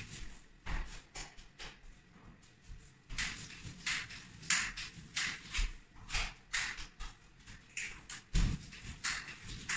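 A facade roller loaded with drywall joint compound is pushed back and forth across ceiling plasterboard joints. It makes a steady, rhythmic swish about three times every two seconds, with one duller thump near the end.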